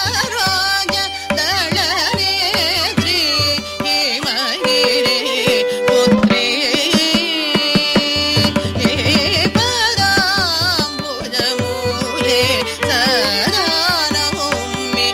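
Carnatic classical music in raga Shankarabharanam: a female voice and violin trace ornamented phrases with wide sliding and oscillating notes over a dense run of mridangam strokes.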